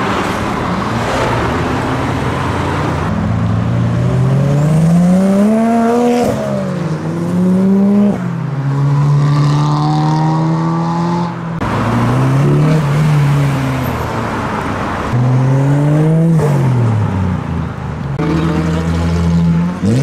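Modified cars accelerating past one after another, each engine's note climbing with the revs and then dropping at a gear change or as the car lifts off. One engine holds a steady note for a few seconds in the middle.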